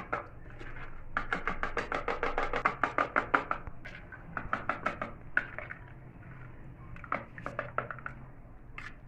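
A spoon stirring cocoa into milk, clinking quickly and regularly against the sides of the cup, in a long run and then in shorter spells.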